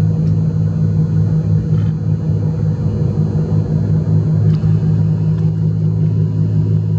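Steady low mechanical drone, loud and unchanging, with a few faint clicks.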